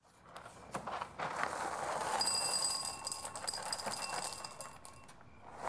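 Dry cereal poured from a box into a ceramic bowl: a rattling patter of many small pieces that swells, peaks, then thins out as the pour ends, with the bowl ringing faintly under it.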